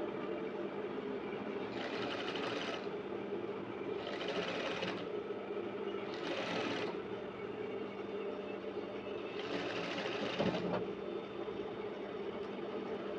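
Electric sewing machine stitching a zipper onto stretchy fabric, running steadily with a continuous motor hum, broken by several short, brighter, hissier spells.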